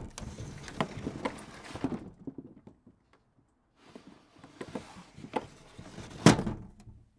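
Footsteps and light knocks in two runs with a pause of about two seconds between them. The second run ends in a loud thump about six seconds in.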